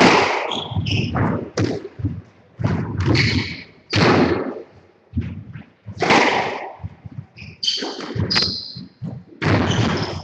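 A squash rally: the ball is struck by rackets and thuds off the court walls in irregular sharp hits, with short high squeaks of shoes on the wooden court floor.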